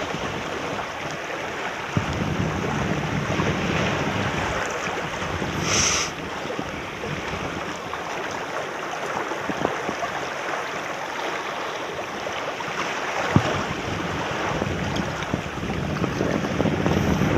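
Small waves washing and splashing around rocks at the water's edge, with wind gusting on the microphone in low rumbles. A short hiss stands out about six seconds in.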